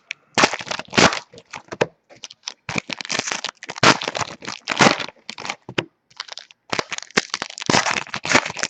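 Crinkling and crackling of plastic packaging as trading-card packs and wrappers are handled during a box break, a dense run of irregular sharp crackles with brief pauses about two and six seconds in.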